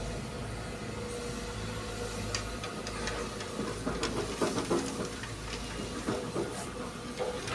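Heavy diesel machinery running steadily with a low rumble, with scattered knocks and rattles through the middle.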